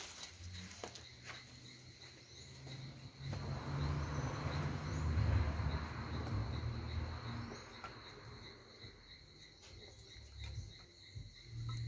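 An insect keeps up a high, steady, fast-pulsing trill, with a low rumble swelling up for a few seconds in the middle and a few light clicks of kindling sticks being handled.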